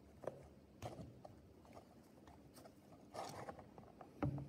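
Faint clicks and light taps as a Torx 45 bit turns out the drain plug of a BMW R1250GS final drive. About three seconds in comes a short rush as the hypoid gear oil starts to drain into a plastic tub, and a knock just after.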